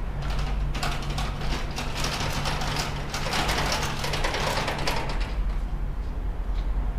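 A steady low machine hum, with a stretch of scraping, rattling noise over it in the middle that dies down about five seconds in.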